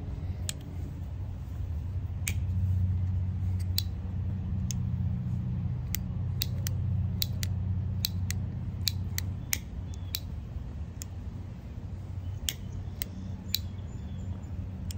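Dissim pipe lighter's igniter clicking about twenty times at uneven intervals without lighting. The lighter sparks but the butane will not catch. A steady low hum runs underneath.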